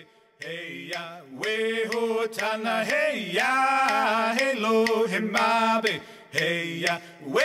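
Closing music: voices chanting a melody in phrases over a steady low tone.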